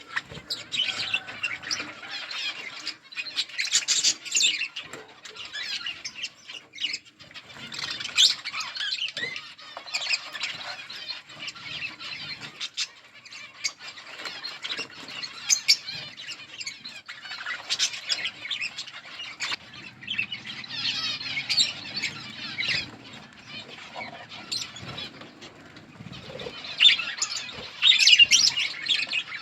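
A colony of budgerigars chirping and chattering together, many birds at once without a break, swelling into louder flurries several times.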